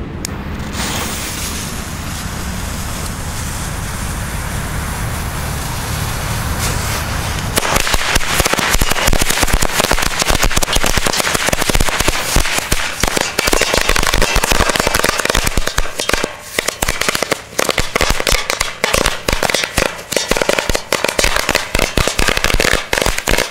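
A steady hiss for about seven seconds, then a Rabiator 300 firecracker string goes off in a rapid, dense chain of sharp bangs. After the middle the bangs come more sparsely, with short gaps, and they stop near the end.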